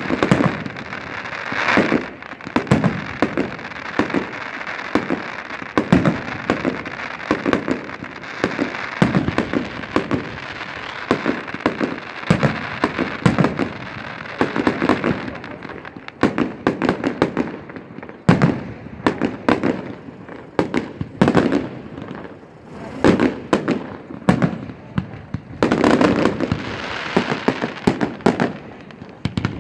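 Aerial firework shells launching and bursting one after another: many sharp bangs, some in quick clusters, over a steady noisy hiss that fills much of the first half and returns near the end.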